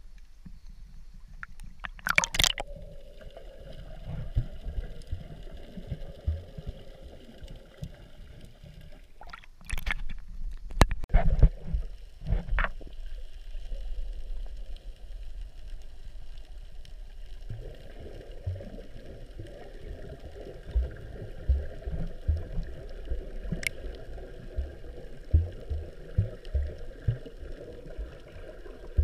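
Muffled underwater sea sound picked up by a submerged camera in its waterproof housing: low sloshing and gurgling with irregular dull thumps. There are sharper, louder splashes about two seconds in and again around ten to twelve seconds in.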